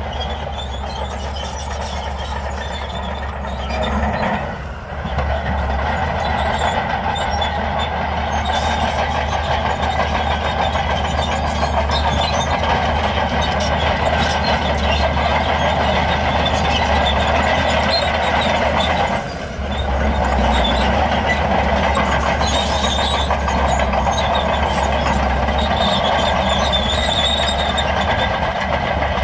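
Shantui DH17C2 crawler bulldozer's diesel engine running under load, with its steel tracks clanking and squeaking as it pushes and drives over broken stone. The steady noise dips briefly twice, about five seconds in and again about two-thirds of the way through.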